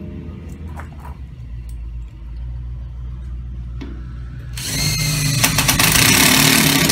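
Cordless drill driving a self-tapping screw into a van's rear door frame to fix a window safety screen. The drill runs for about two seconds near the end and stops sharply, after a few light clicks from handling.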